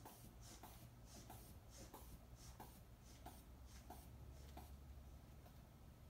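Faint, rhythmic squeezing of a blood pressure cuff's rubber inflation bulb, each squeeze a short airy puff with a small click, about three every two seconds, stopping about five seconds in. The cuff is being inflated until the brachial pulse can no longer be felt, to estimate the systolic pressure by palpation.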